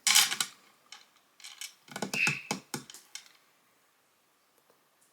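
A few light clicks and taps of small objects being handled, after a short noisy rustle at the start, then quiet for the last two seconds.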